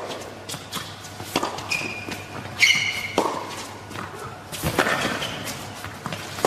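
Tennis rally on an indoor hard court: racket strikes and ball bounces, mixed with short squeaks of shoes on the court surface, echoing in a large hall.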